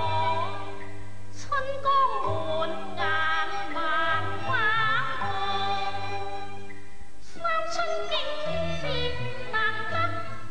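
Cantonese opera singing: a singer delivers a sung passage with long, wavering held notes over instrumental accompaniment.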